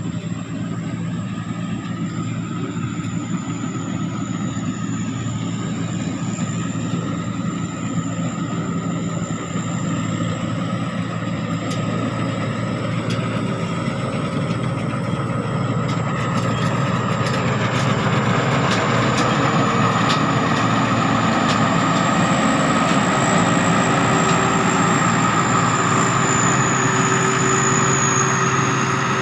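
Sakphatthana SS-300 combine harvester's diesel engine running steadily under harvesting load, with a thin high turbocharger whistle over the engine drone; the sound grows louder a little past the middle.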